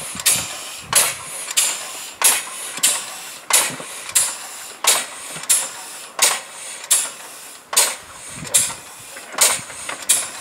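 Home-made twin-cylinder compressed-air locomotive running, its cylinders (tractor hydraulic rams fed through spool valves) exhausting air in sharp hissing puffs, evenly spaced at about one and a half a second, with a quieter hiss between them.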